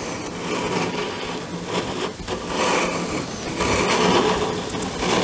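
A planchette sliding across a Ouija board, a continuous rough scraping that swells and eases as it moves between letters.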